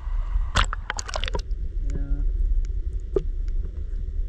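Shallow seawater splashing and sloshing around the camera as it is dipped into the water, then a muffled underwater rumble with occasional faint clicks once the microphone is submerged.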